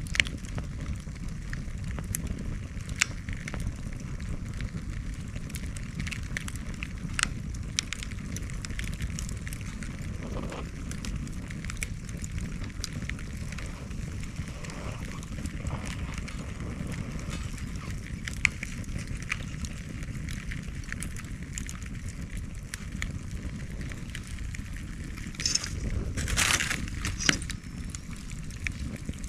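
Bonfire of cut bamboo and brush crackling, with scattered sharp pops over a steady low rumble. Near the end comes a louder hissing, crackling spell of about two seconds.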